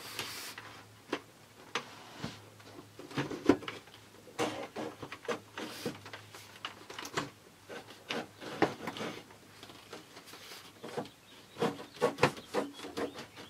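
Plastic and aluminium shower-curtain track being handled overhead: irregular clicks, taps and rubbing as the curtain's studs are worked into the top track and the track is shifted into place.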